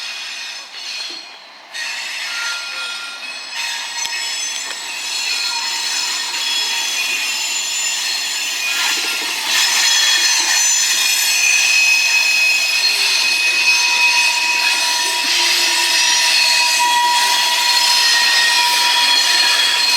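Freight train's wheels squealing on a curve as it passes, several steady high-pitched tones over one another that swell and shift, growing louder about halfway through.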